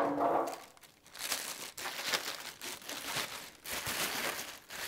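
Thin plastic wrapping crinkling and rustling in irregular handfuls as it is handled around a boxed turntable, after a brief louder sound at the very start.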